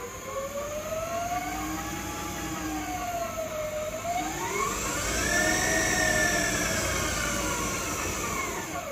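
Electric drive motor of a converted classic Austin Mini whining as it spins the front hub and brake disc clear of the ground. The whine rises in pitch, dips about four seconds in, climbs higher, then falls away near the end, with a steady high-pitched tone above it.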